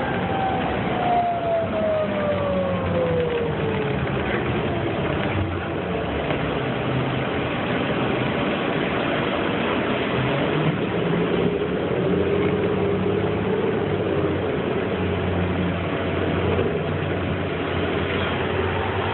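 Inside a 2008 New Flyer C40LFR transit bus at freeway speed: its Cummins Westport ISL-G natural-gas engine and Allison B400R6 transmission running steadily under tyre and road noise. A whine falls in pitch over the first few seconds, and another rises and falls about two-thirds of the way through.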